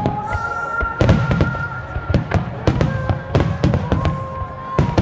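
Fireworks shells bursting in rapid succession, booms and sharp cracks several times a second with rumbling in between, over music with long held notes.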